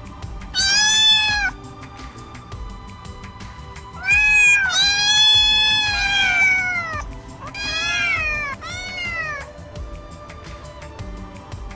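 Kitten meowing: about five high, arching meows, one about a second in, then a cluster from about four seconds including one long drawn-out meow, and two shorter ones near eight and nine seconds.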